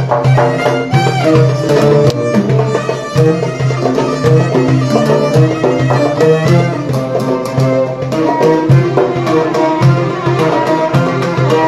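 Live Arabic folk music: a darbuka (goblet drum) and a frame drum beat a fast, steady rhythm under the plucked melody of an oud.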